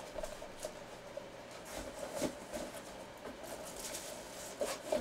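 Quiet room with several faint clicks and knocks, the clearest a little over two seconds in, from objects being handled on the table.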